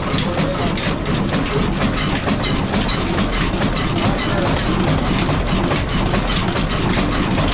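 Large old stationary diesel engine with a heavy flywheel running steadily, with an even mechanical clatter over a low rumble.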